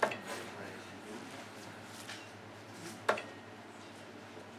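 Two steel-tipped darts thudding into a bristle dartboard, one right at the start and the second about three seconds later, each a short sharp thock over a low room hum.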